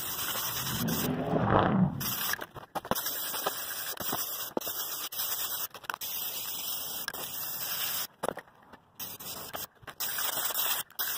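Ace aerosol spray-paint can hissing as black paint is sprayed, stopping and starting abruptly several times. A brief, deeper rumble about a second and a half in is the loudest sound.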